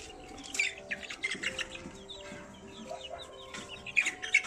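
Birds chirping and clucking: many short high chirps, with two louder, sharper sounds near the end.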